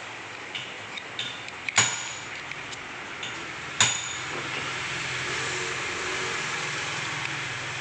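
Metal parts and tools handled on a workbench: small clinks, then two sharp metallic knocks with a brief ring about two seconds apart. From about four seconds in a steady noise rises and holds beneath.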